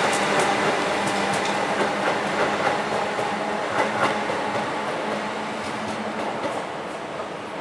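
Thameslink electric multiple unit train running on the track, its wheels clicking over rail joints over a steady hum, getting gradually quieter.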